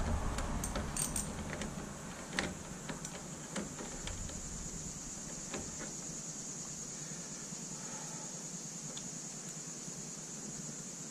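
Light metallic clicks and clinks of an Allen key working the bolt of a chrome motorcycle foot peg, scattered over the first six seconds and then dying away. A steady high hiss runs underneath.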